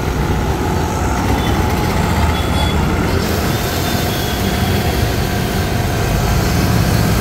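A GMP 3 HP, 160-bar high-pressure washer with a single-phase electric motor running under load, a steady motor-and-pump drone with the hiss of foam spraying from its foam lance. Street traffic sounds behind it.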